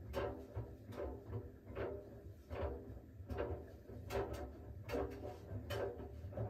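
Siemens iQ700 front-loading washing machine running its smartFinish steam cycle: a steady low hum from the turning drum, with sharp knocks and clicks roughly once a second as the laundry tumbles and drops.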